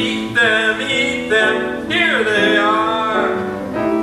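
Male voices singing over piano accompaniment; about two seconds in, one voice slides down in pitch.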